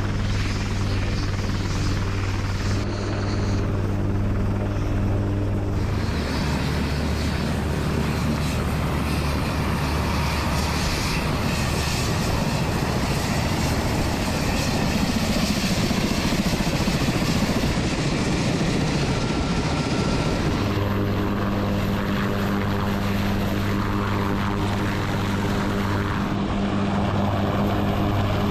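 UH-1Y Venom helicopter running, its turbine engines and rotor making a steady, dense drone with fixed low tones. The sound changes abruptly about six seconds in and again around twenty seconds in.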